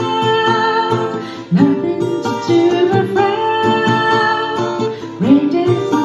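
Music led by acoustic guitar, strummed and plucked, playing continuously.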